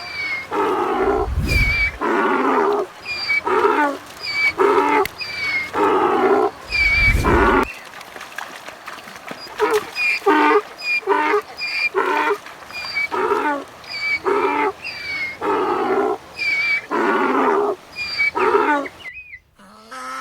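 Donkey braying: a long run of hee-haw cycles, a rasping in-breath and out-breath alternating about once a second, that stops about a second before the end.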